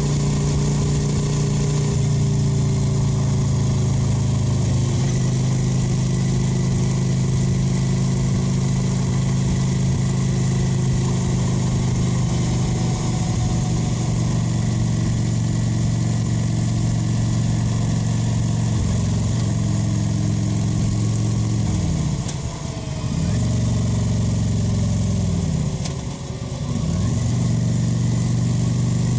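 Kawasaki VN 900's V-twin engine running steadily while riding, its exhaust note dipping twice late on, briefly falling in pitch and level before picking back up.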